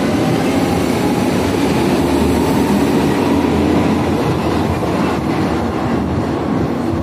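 Berlin U-Bahn U9 train pulling out of an underground station, with a steady loud rumble of wheels and motors that eases slightly as the last car clears the platform about five seconds in.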